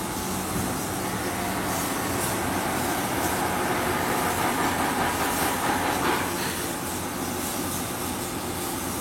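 Steady mechanical running noise that swells a little in the middle and eases back after about six seconds.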